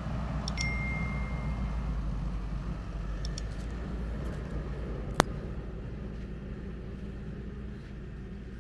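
Subscribe-and-like banner sound effects: short mouse clicks with a ringing ding held for about a second and a half near the start, a few faint clicks around three seconds in, and one sharp click, the loudest sound, about five seconds in. Underneath runs a steady low rumble.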